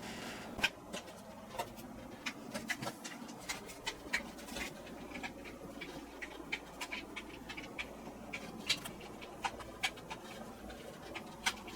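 Hand screwdriver driving a screw into the ceiling lamp's mounting: faint, irregular clicks and small scrapes as the screw is turned.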